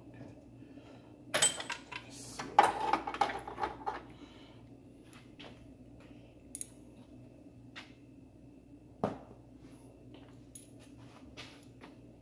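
Metal tool clinks and clatter from a socket wrench working on the alternator's 14 mm top mounting bolt. A dense run of clatter comes about one and a half to four seconds in, followed by a few scattered single clicks.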